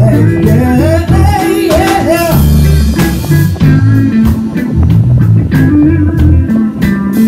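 A band playing live in a room, with a man singing over electric bass guitar and drums. The singing stops about two and a half seconds in and the band plays on.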